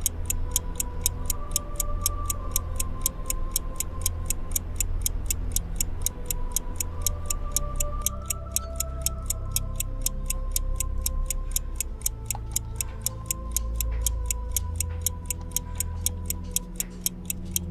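Quick, even ticking of a clock, a few ticks a second, over a slow suspense score of low held tones.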